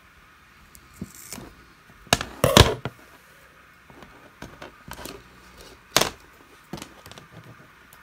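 Scissors cutting through an LED strip, then plastic clicks as a snap-on connector is pressed onto the cut end, amid small knocks of handling on a tabletop. The loudest knocks come about two and a half and six seconds in.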